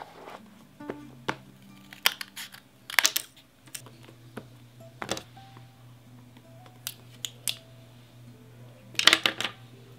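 Scattered clicking of computer keyboard keys in short irregular clusters, the loudest burst near the end, over faint background music.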